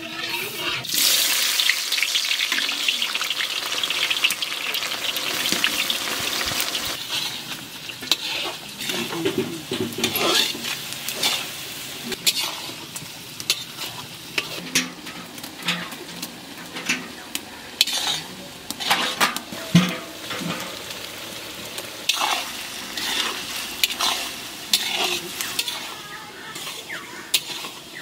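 Mutton sizzling in oil in a large metal kadai while a metal spatula stirs it, scraping and clinking against the pan. The sizzle is strongest in the first several seconds; after that, the knocks of the spatula stand out more.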